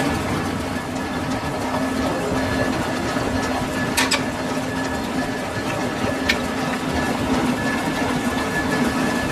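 Lathe running steadily with a constant hum, and two sharp clicks about four and six seconds in.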